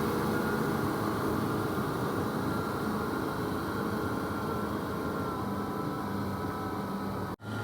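Kubota M6040SU tractor's diesel engine running steadily under load while ploughing, with a brief dropout near the end.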